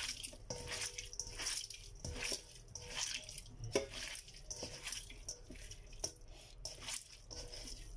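Hand kneading and squeezing salted pork intestines in a stainless steel bowl, a run of wet, irregular strokes, as the intestines are rubbed with salt and washed to take out their bitterness.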